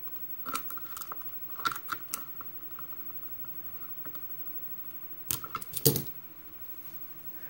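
Folding pocket-knife blade cutting and scraping at black tape wrapped around a brass key: clusters of short, scratchy clicks, with a louder burst of crackling and clicking about six seconds in as the tape is worked loose.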